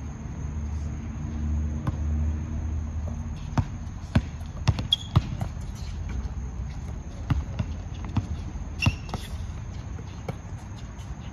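Basketball bouncing on an outdoor hard court: a run of sharp bounces about two a second starting a few seconds in, then a few more scattered later, over a steady low hum.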